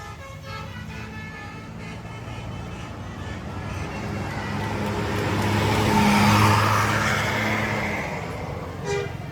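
A bus passing by on the road. Its engine and tyres grow louder to a peak about six seconds in, then fade away. In the first two seconds the last notes of a multi-tone telolet musical horn melody are heard.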